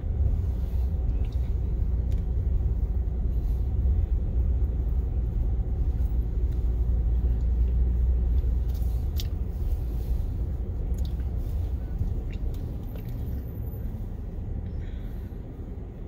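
Wind buffeting the phone's microphone: a wavering low rumble that eases off in the second half, with a few faint clicks.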